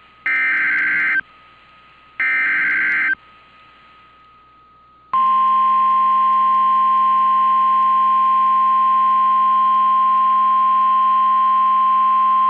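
NOAA Weather Radio Emergency Alert System signal: two one-second bursts of SAME digital header data, a warbling screech, then about five seconds in the steady 1050 Hz weather radio warning alarm tone starts and holds. Together they announce a flash flood warning.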